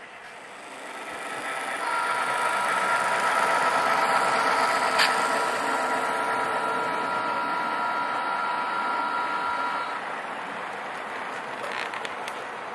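HO-scale model locomotive's sound decoder playing a long, steady multi-tone horn chord through its small speaker for about eight seconds, over a continuous engine rumble.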